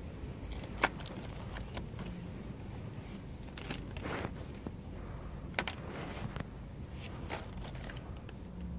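Plastic hand-cream tubes and packets handled in a wire display bin: scattered rustles and light clicks, with one sharp click about a second in, over a low steady hum.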